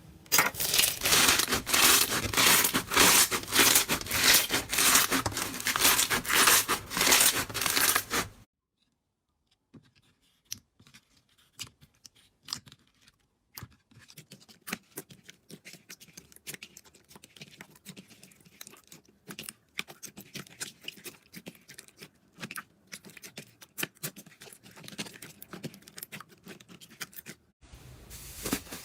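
Slime being handled, making dense, loud crackling and popping for about eight seconds. After a brief silence, quieter and sparser clicks and crackles of slime follow.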